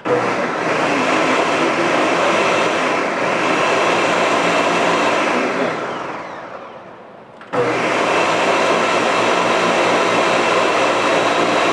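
Ninja countertop blender puréeing cooked broccoli and cauliflower in broth. It runs steadily for about five seconds, winds down, then starts again abruptly about seven and a half seconds in and keeps running.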